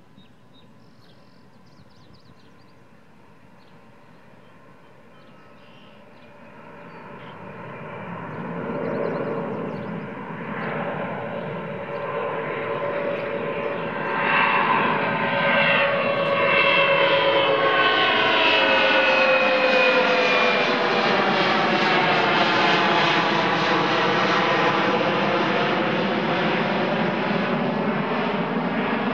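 Jet airliner taking off, its engine noise faint at first, building from about six seconds in and loudest from about fourteen seconds on. The rumble holds a slowly sweeping, wavering tone as the aircraft climbs and passes.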